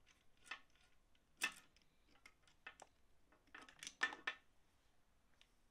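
Scattered light metallic clicks and clinks as a brake-pipe flaring tool and brake pipe are handled on a metal workbench, the sharpest about one and a half seconds in and a quick cluster around four seconds.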